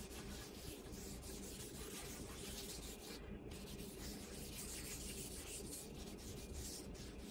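Faint rubbing and scratching of a cloth wiping cutting board oil into a hardwood cutting board, in many short small strokes, over a faint steady hum.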